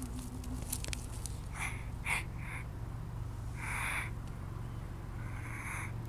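A tortoise hissing in a few short breathy puffs, the loudest about two-thirds of the way in, as it pulls its head and legs into its shell on being picked up. A low steady rumble runs underneath.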